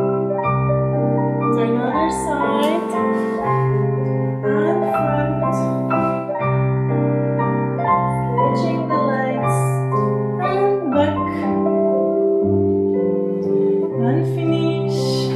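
Piano music for a ballet class, held chords over low bass notes that change about once a second.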